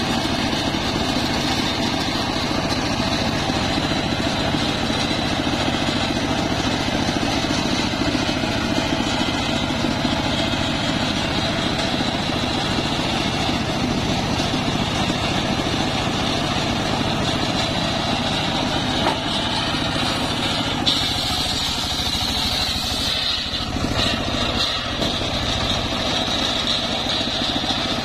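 Engine-driven homemade circular sawmill running steadily, its large blade spinning as trembesi logs are fed through and sawn into rafters. A brighter high whine rises over the engine for a couple of seconds about three-quarters of the way through.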